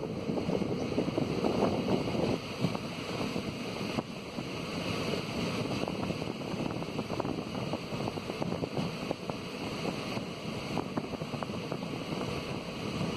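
Passenger train running along the track, heard from the coach doorway: a steady rumble of wheels on rail with a stream of small clicks and clatter, and wind buffeting the microphone.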